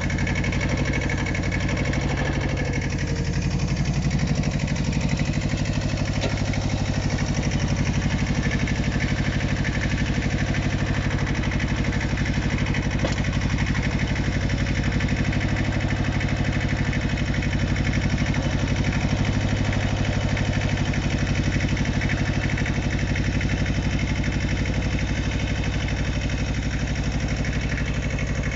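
Iseki TS1610 compact tractor's 16 hp diesel engine running steadily while its front loader lifts and carries a heavy concrete block.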